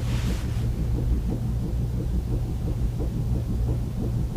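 Steady low rumble of background noise, with a brief soft hiss near the start.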